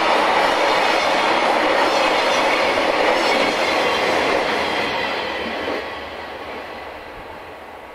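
Wheels of a freight train's container flat cars running on the rails as the wagons roll past, a steady noise that fades away from about six seconds in as the train's tail recedes.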